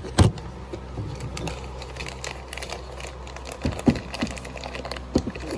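Handling noise from a small plastic smoke alarm being turned over in the hands: a sharp knock just after the start, many faint small clicks, and a few more knocks toward the end.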